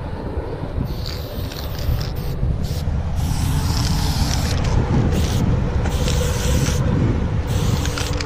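Aerosol spray paint can spraying in several hissing bursts of a second or two each, over a steady low rumble of wind on the microphone.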